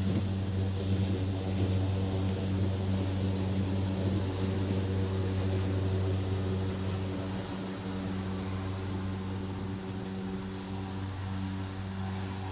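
Lawn mower engine running at a steady speed while mowing grass, a constant low hum.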